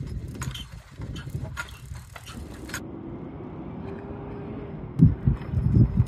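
A horse-drawn stagecoach passing on a dirt road: irregular hoof clops with wheel and harness rattle for the first few seconds. After that a steady hum, with several loud low thumps near the end.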